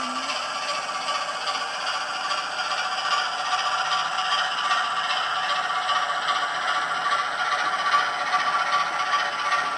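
OO-gauge model locomotive running along the track: a steady mechanical rattle and scrape from its wheels and motor.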